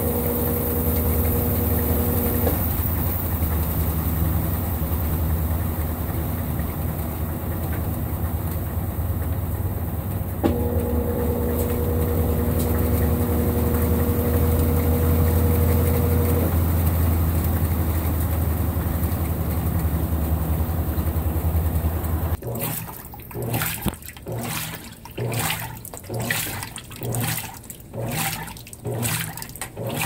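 Consul 16 kg top-load washing machine spinning its basket, a steady motor hum with a whine that comes and goes twice. About 22 seconds in it changes abruptly to the agitator churning a full tub of rinse water, rhythmic sloshing strokes a little more than once a second.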